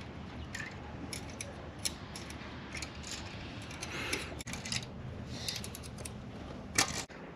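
Small metal clicks and light scraping from hand work on a Honda H22 cylinder head as a lost motion actuator is pulled out of its bore, with a sharper cluster of clicks near the end.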